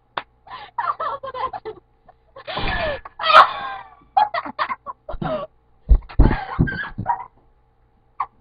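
People laughing hard in broken, cackling bursts of voice.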